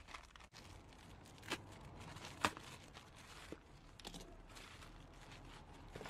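Plastic bag crinkling and a paraffin-soaked wood-fibre fire-starter block being pulled and broken apart by gloved hands: a run of faint rustles and sharp crackles, the loudest about two and a half seconds in.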